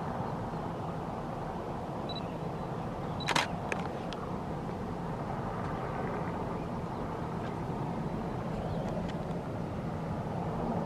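Steady rush of falling water from a waterfall. About two and three seconds in, a camera gives two short high beeps, and the second is followed by a sharp shutter click.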